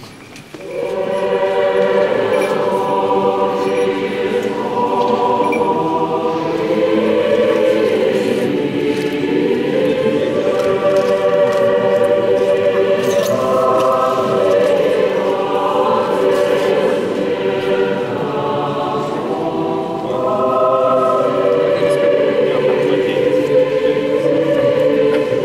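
Orthodox church choir singing unaccompanied in slow, sustained chords, coming in about a second in.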